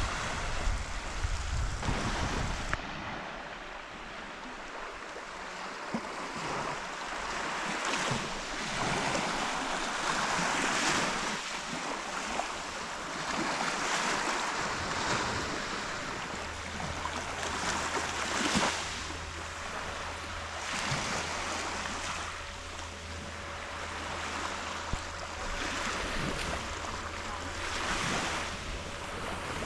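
Sea waves washing in, the noise swelling and falling every few seconds. A steady low hum comes in about halfway through.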